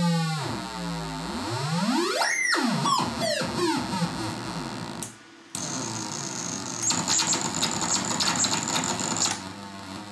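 Hand-built circuit-bent analog noise synthesizer played by turning its knobs. Its pitch swoops down and back up in steep glides, then falls in several quick swoops. It cuts out briefly about halfway, then turns into a harsh, rapidly stuttering noise with a high whine for a couple of seconds.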